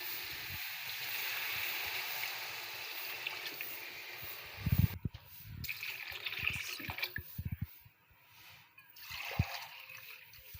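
Water poured from a mug into a pot of fried beef: a steady pour for about five seconds, a knock about five seconds in, then shorter pours and splashes with gaps between them.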